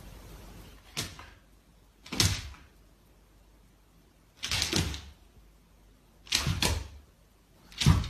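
Huskies making short grunting huffs while play-sparring, five of them a second or two apart.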